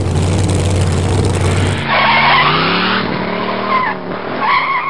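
Car sound effects: an engine running hard, then an abrupt cut about two seconds in to tyres squealing over a revving engine, the squeal wavering in pitch and coming in twice.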